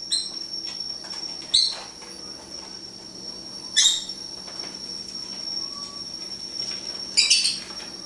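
Lovebirds giving short, sharp high chirps, one every second or two, with a quick pair near the end.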